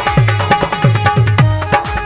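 Instrumental break in a Sindhi folk song. A hand drum plays a quick rhythm whose deep bass strokes slide down in pitch, under a held melody note.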